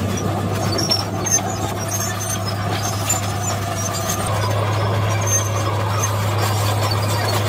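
Komatsu D53P crawler bulldozer's diesel engine running steadily under load as it pushes soil, the engine note growing louder about halfway through. Short high squeaks and clanks come from the steel tracks.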